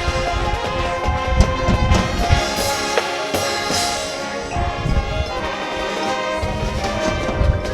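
High school marching band playing, the brass section holding full sustained chords over low drum hits.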